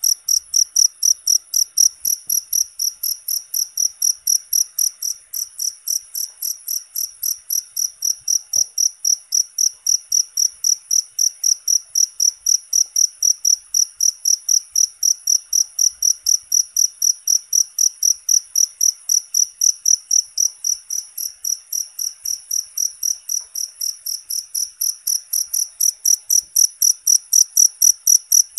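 Cricket chirping steadily in an even, high-pitched rhythm of about three chirps a second.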